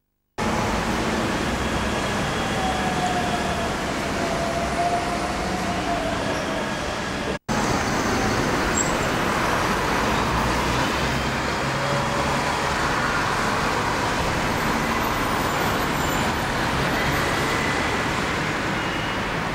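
Steady road traffic with buses passing and running close by. The sound drops out briefly twice, just after the start and about seven seconds in.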